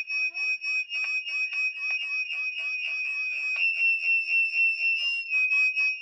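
Electronic noise from a baby monitor's speaker: a steady high whine overlaid with rapid chirps, about five a second, that sweep downward in pitch.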